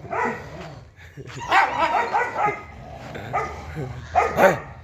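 Dogs barking and yelping in a series of short, sharp calls, a quick run of them about a second and a half in and a loud pair near the end.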